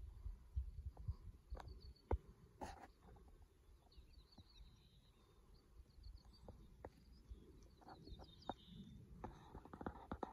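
Quiet outdoor ambience: wind buffeting the microphone in uneven low gusts, with faint high-pitched chirping and a few soft clicks.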